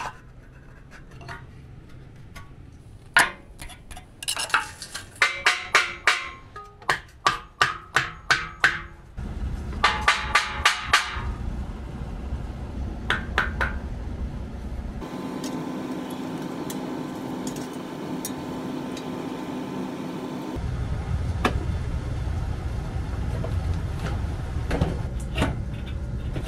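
Hammer driving wooden shims in behind a steel door frame: a run of sharp, ringing strikes about two a second, then a few more. After that comes a steady hum.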